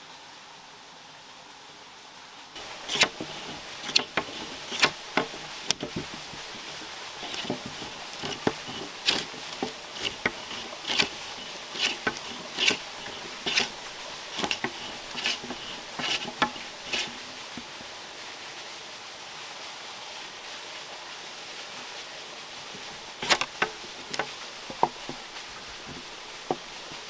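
A run of sharp strikes of a hand tool, about one a second at first, then quicker and uneven, stopping after about 17 seconds, then a short second burst of strikes near the end. A steady hiss sits underneath throughout.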